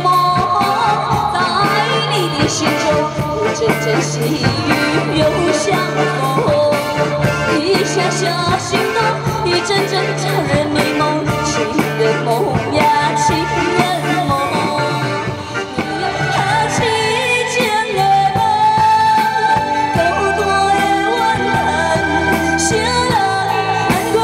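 A woman singing a light, upbeat Mandarin pop song into a microphone over band accompaniment with a steady beat and bass line.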